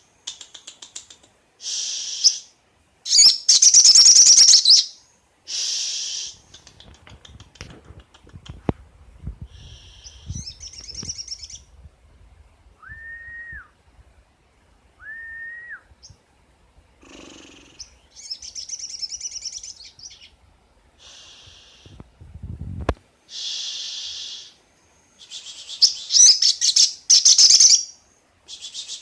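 A young wild-caught Sogon bird singing in bursts of harsh, high chirping phrases about a second long, with two short clear whistled notes in the middle. A brief low thud comes shortly before the last few bursts.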